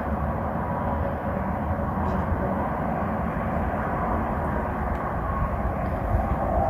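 Wind buffeting the camera's microphone: a steady rushing rumble, heaviest at the low end.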